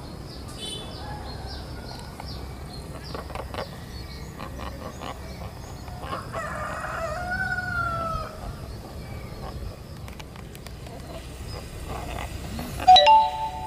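Birds chirping, with a rooster crowing once around the middle. Near the end a diesel locomotive's air horn, the 'S35' horn, sounds suddenly and loudly as a chord of several steady tones.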